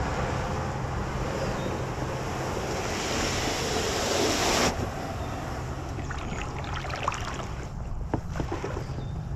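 Wind rushing over the camera microphone for about the first half, cutting off suddenly; then scattered knocks and scrapes as the sea kayak and paddle are handled and pushed into the water at the shore.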